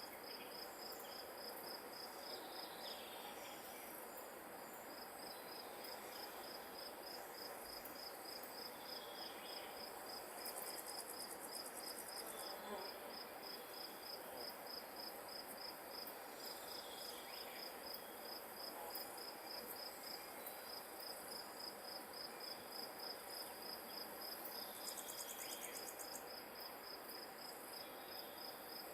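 Grass insects chirping in a steady, even run of high-pitched pulses, with another insect's short, very high trill breaking in twice, over a faint steady outdoor hiss.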